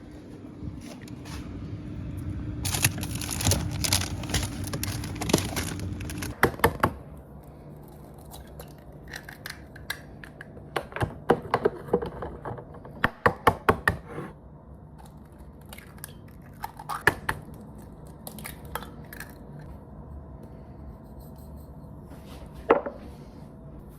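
Kitchen food-prep sounds: a low hum with a hiss for the first six seconds, then runs of quick sharp knocks of a knife cutting oranges on a cutting board, with clatter of dishes.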